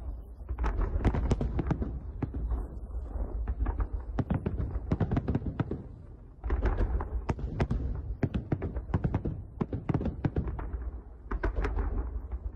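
Fireworks salute: aerial shells bursting in volleys of rapid sharp cracks and bangs over low booming, with brief lulls between volleys.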